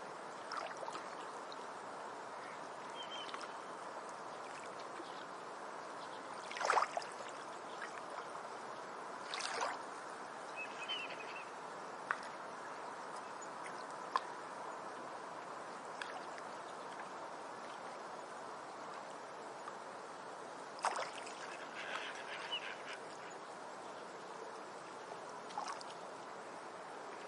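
Ducks quacking a few times, short calls with the loudest about seven seconds in, over a steady rush of water.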